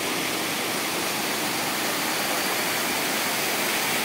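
Elephant Falls, a waterfall, rushing steadily: an even, unbroken hiss of falling water with no change in level.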